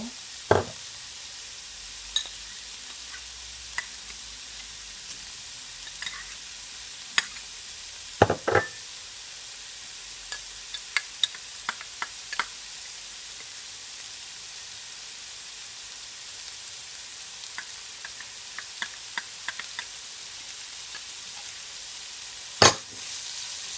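Chicken filling sizzling steadily in a pot on the stove while a spoon stirs it, with scattered clicks and knocks of the spoon against the pot. The loudest knocks come about half a second in, at about eight seconds and near the end.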